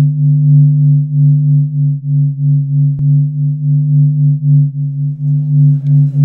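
A steady low electronic drone of a few held tones, pulsing in loudness about three times a second, with a single sharp click about halfway through. Near the end, crowd voices come in under it.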